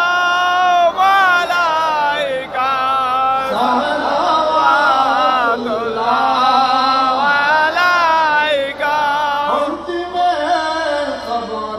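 Men chanting a devotional salutation to the Prophet (qiyam salam) through a PA system, a slow melody of drawn-out, wavering notes broken by short pauses for breath.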